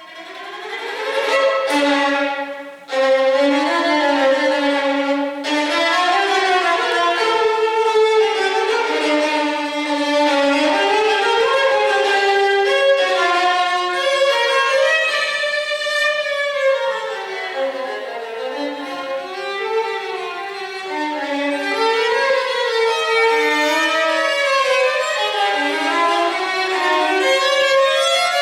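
Violin playing a flowing melody, at times two notes together, with brief breaks about three and five seconds in.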